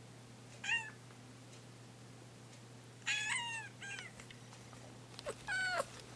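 Young orange-and-white cat meowing four times: one short meow, then two close together near the middle, and a longer one near the end. These are demanding meows from a cat that wants the door opened for it.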